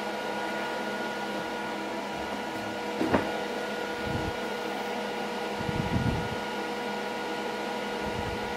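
Steady machine hum with several fixed tones, broken by a sharp click about three seconds in and a couple of dull bumps a little later.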